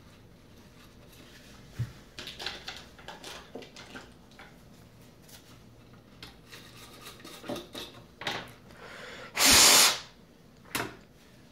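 Toothbrush and tissue scrubbing on a circuit board, soft scattered brushing and rubbing sounds. About two seconds before the end comes a loud hiss lasting about half a second, then a shorter burst of noise.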